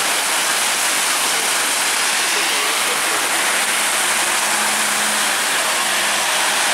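Heavy rain pouring steadily, a dense even hiss, with a single-deck diesel bus passing on the wet road and a faint engine hum in the second half.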